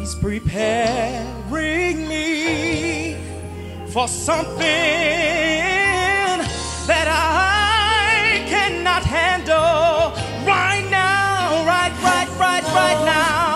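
A male gospel vocalist singing solo with wide vibrato on long held notes, over a band accompaniment with steady held bass notes.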